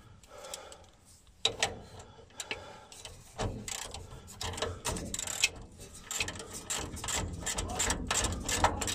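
Hand ratcheting driver with a socket clicking in short, irregular runs as a bolt is turned, with a few sharper metal clicks of the tool on the bolt.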